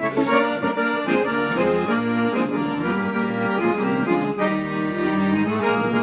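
Accordion (gaita) playing a traditional gaúcho instrumental passage, with a quick run of melody notes and chords over bass notes, accompanying an improvised trova.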